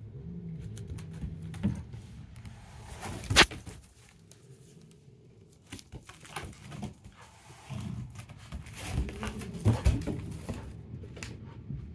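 House cat growling low in warning at a puppy nosing at it, in two spells, near the start and again from about eight to ten seconds in. A single sharp knock about three and a half seconds in.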